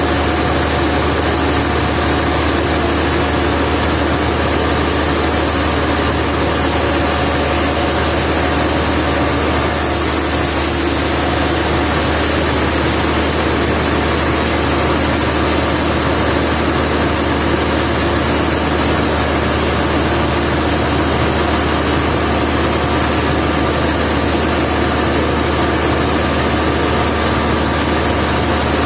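Sawmill machinery running steadily, a loud, unchanging engine-like drone with no pauses.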